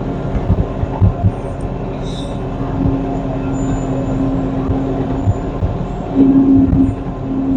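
Tractor engine running, heard from inside the cab, with occasional low knocks and clunks. About six seconds in, a steady hum gets louder.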